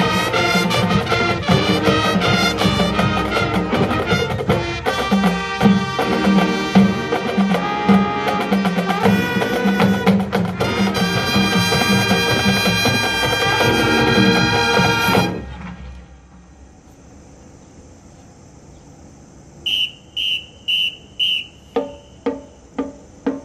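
Marching band playing a loud brass-led number with drums, stopping sharply about two-thirds through. After the cut-off comes a faint steady high whine, then near the end a regular click at about two a second, four higher clicks followed by lower ones.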